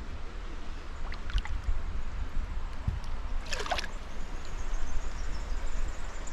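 Shallow river water trickling and lapping around a person's hands as a Murray cod is released, with a brief splash about three and a half seconds in as the fish goes.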